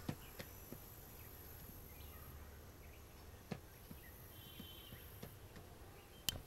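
Quiet background with faint chirps and a few light ticks as hands handle an old portable transistor radio. Near the end comes one sharp click as its knob is turned to switch it on.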